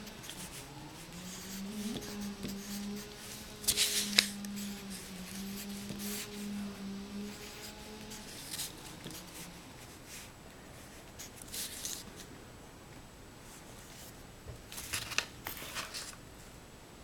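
Mechanical pencil scratching on paper in short bursts as digits are written out, with a steady low hum through the first half.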